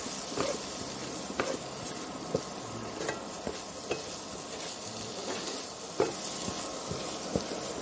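A spatula stirs and scrapes onion-tomato masala, with spice powders just added, around a textured metal frying pan, with a low sizzle of frying underneath. Irregular scrapes and knocks of the spatula against the pan come every second or so.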